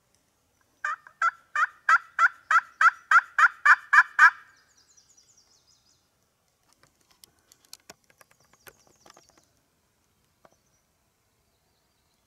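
A series of about ten turkey yelps, about three a second, growing louder, then stopping. A few faint clicks follow.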